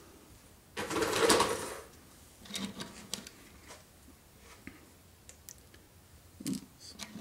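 Hands working HO model railroad flex track and small plastic parts: a brief rustling scrape about a second in, then scattered light clicks and taps.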